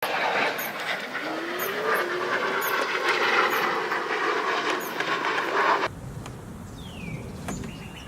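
A motor running with a steady whir and a faint tone that rises slightly, which cuts off suddenly about six seconds in. Quieter outdoor background follows, with one short falling bird chirp near the end.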